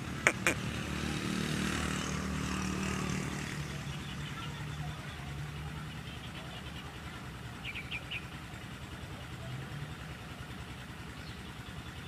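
A motor engine running steadily in the background, its pitch shifting a little, with two short sharp sounds right at the start and a quick run of three chirps in the middle.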